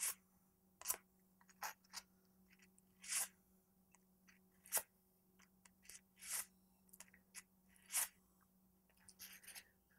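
Sand cloth rubbed around the end of a half-inch copper pipe, giving short, faint scrapes at irregular intervals about once a second. The pipe end is being cleaned of oxidation to bright copper so that solder will adhere.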